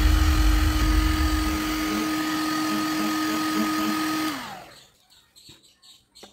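Black+Decker heat gun running, a steady blowing fan noise with a motor whine. It is switched off about four seconds in and the whine falls in pitch as the fan spins down, leaving near silence with a few faint handling sounds.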